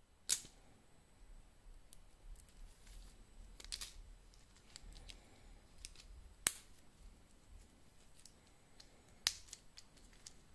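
Sharp clicks and light metallic clinks of a black metal link watch bracelet and its folding clasp being handled and closed on the wrist. Three clicks stand out: just after the start, past the middle, and near the end.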